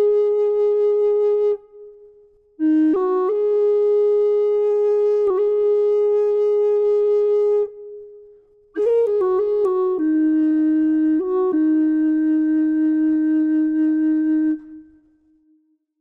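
Slow instrumental music: a reedy wind instrument playing long held notes in three phrases with short breaks between them, the last low note fading out near the end.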